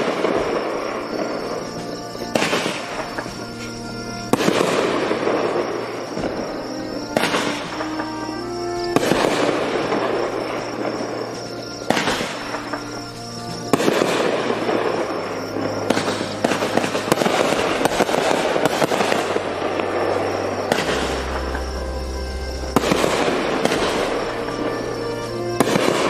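500-gram fireworks cake (Hammer and Anvil 'The Declaration', 27 shots) firing aerial shells one after another: about ten sharp bangs, one every two to three seconds, each trailed by a few seconds of noisy fizz from the bursting stars. Background music plays beneath.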